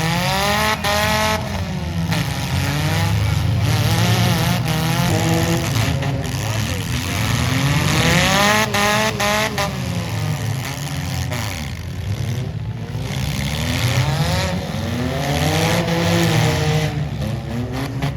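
Demolition derby car engines revving up and down over and over.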